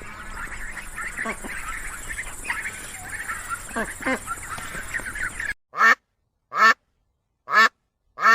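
Ducks quacking: a flock chattering with many overlapping quacks, then, after a cut about five and a half seconds in, single quacks about once a second.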